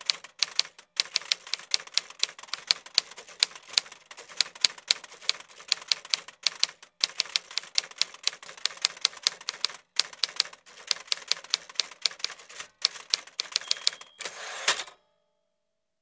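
Typewriter keys clattering in a rapid run of sharp strikes, several a second, with a few short pauses. Near the end comes a short ring and a rasping sweep, then it stops.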